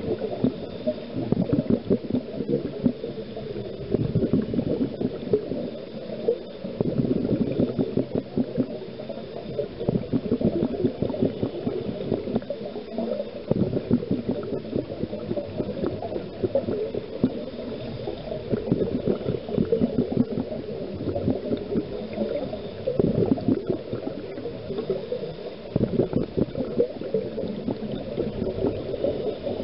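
Underwater bubbling and gurgling from a scuba diver's exhaled breath, heard through the camera housing, swelling louder every few seconds.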